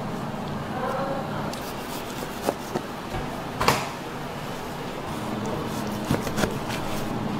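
Raw beef being handled and cut with a knife on a wooden cutting board: a steady soft background with a few sharp knocks, the loudest about halfway through and two more near the end.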